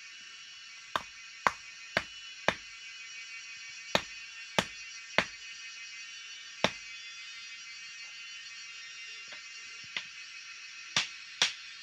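Hammer blows on a bent piece of metal held against a wooden block as it is beaten straight: about a dozen sharp strikes in uneven groups, with a pause of a few seconds before the last three.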